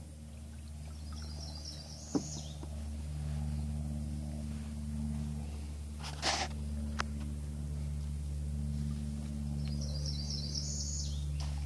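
Streamside ambience with a songbird singing the same short, high, rising trilled phrase twice, about eight seconds apart, over a steady low hum. A short sharp noise stands out about six seconds in.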